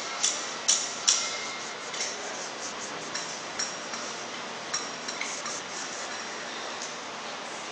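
Sharp light clicks and clinks of small hard objects being handled, several in the first second or so and then a few scattered ones, over a steady background hiss.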